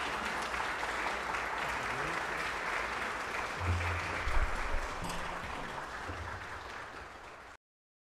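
Audience applauding steadily, thinning out and cutting off abruptly near the end, with a few low thumps about halfway through.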